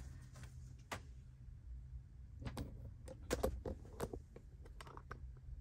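Faint scattered clicks and knocks from a hand-held camera being handled and repositioned, over a low steady hum.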